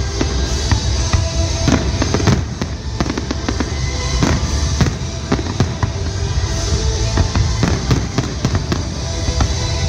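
Aerial firework shells bursting in quick succession, a dense run of booms and crackles over a continuous low rumble, with music playing underneath.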